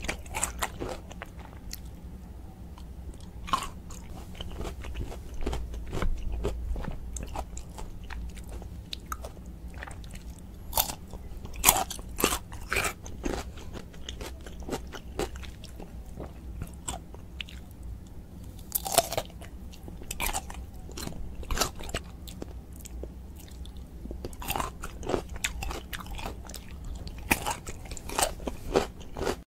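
Close-miked crunching and chewing of whole pickled gherkins: irregular crisp crunches from bites and chews into the firm, brined flesh, over a steady low hum.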